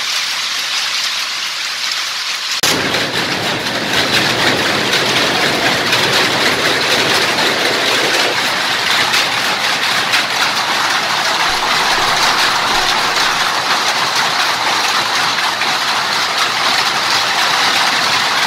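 Powerlooms running together: a loud, dense, rapid mechanical clatter that cuts in suddenly about two and a half seconds in, after a thin hiss.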